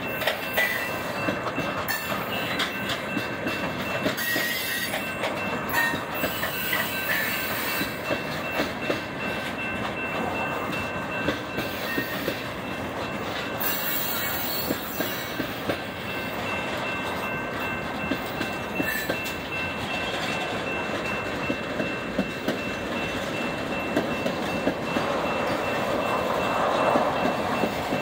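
Freight cars of a manifest train rolling past: a steady rumble of steel wheels on rail with irregular clacks over the joints and the crossing, and a thin steady high tone throughout. The sound swells slightly near the end.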